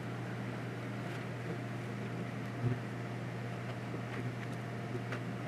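Steady low mechanical hum of kitchen machinery, with a faint tap about two and a half seconds in.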